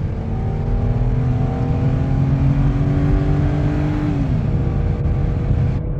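Ford Territory's 4.0-litre Barra straight-six accelerating hard from a standstill at full throttle, its note rising steadily, then dropping about four seconds in as the ZF six-speed automatic shifts up.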